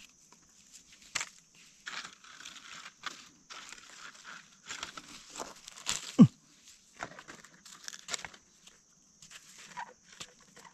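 Knife and gloved hands working in dry soil and leaf litter to cut mushrooms out: scattered rustling of dry leaves and scraping of earth, over a steady faint high hiss. About six seconds in comes a short, sharp squeak that falls quickly in pitch, the loudest sound.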